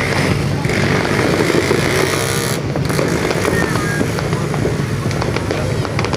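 Motorcycle engines running steadily, with many sharp firecracker pops crackling over them.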